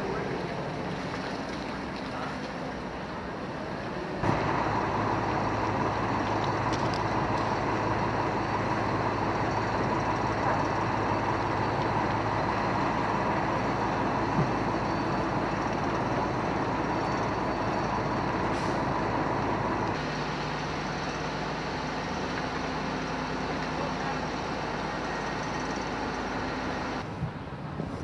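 Steady drone of heavy engines running, a low hum over a rushing noise, at a large fire. It jumps abruptly louder about four seconds in and drops back down twice later on.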